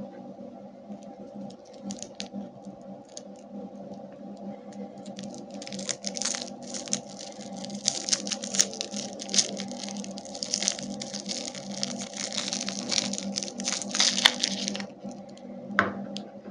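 Plastic candy wrappers crinkling and tearing: scattered small clicks and rustles at first, then a dense stretch of crackling for about ten seconds, ending with a single click. A steady low hum runs underneath.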